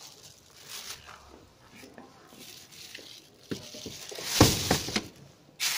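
Clear plastic protective wrap on car seats rustling and crinkling, with knocks as someone handles it and climbs through the cabin; the loudest rustle, with a thud, comes about four and a half seconds in, and a short burst follows near the end.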